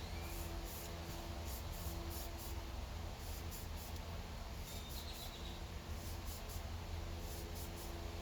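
Faint scratching and rubbing, with a scattering of light ticks, over a steady low hum.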